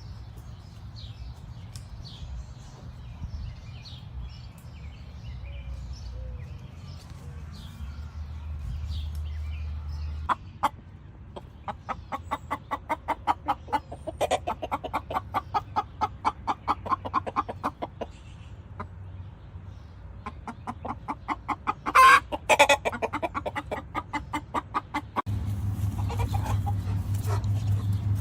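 Buff Orpington hens and a rooster giving high-alert warning calls. They come as long runs of rapid, repeated clucks at about five or six a second, with a louder, sharper call in the second run. Faint high chirping comes first.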